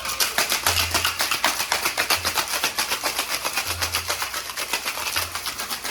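Ice being shaken hard in a Boston cocktail shaker. The ice chunks rattle against the tin in a fast, even rhythm of several strokes a second.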